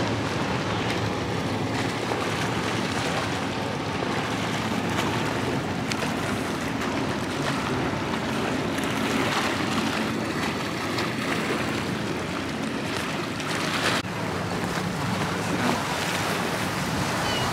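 Wind blowing across the microphone over small waves lapping against a rocky shore: a steady rushing noise with a low rumble.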